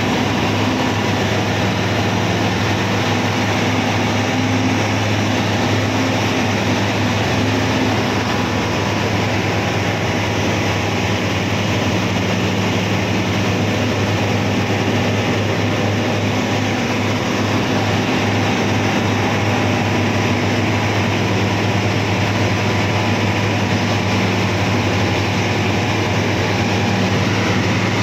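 Heavy diesel engine of a loaded logging vehicle running steadily as it travels, a constant low drone with a rough noisy spread above it.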